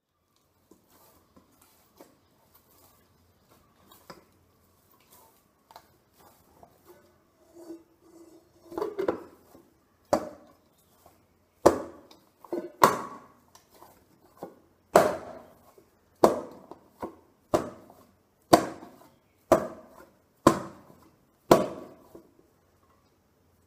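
Chapati dough being kneaded by hand in an enamel pot: soft rustling and small clicks at first, then from about halfway a steady run of sharp knocks, roughly one a second, as the dough is pressed and pushed against the pot.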